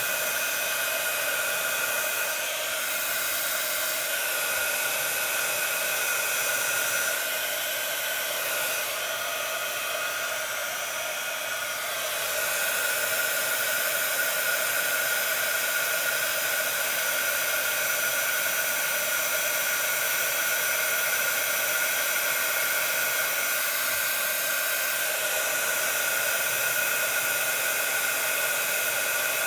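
Craft heat gun running steadily, a loud blowing hiss with a high whine, melting embossing powder on card for heat embossing. It dips slightly in level for a few seconds about ten seconds in.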